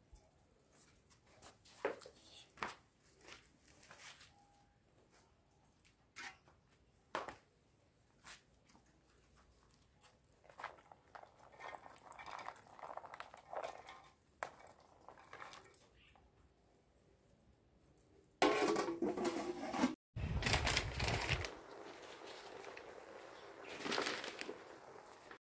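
Scattered clicks and knocks of food being handled in an aluminium cooking pot, with a soft rattle as cooked beans are tipped from a plastic bowl onto sliced tubers. In the last several seconds a much louder rushing hiss takes over, briefly cut off once.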